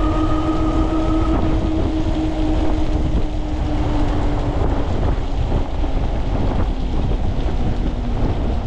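Ariel Rider Grizzly e-bike running at speed on a rain-soaked road: wind buffets the microphone and the tyres run on wet pavement, under a motor whine that rises slightly in pitch and fades out about five seconds in.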